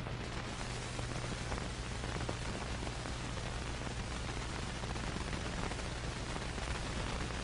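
Steady hiss with faint scattered crackles over a low steady hum: the surface noise of an old film soundtrack with nothing yet playing on it.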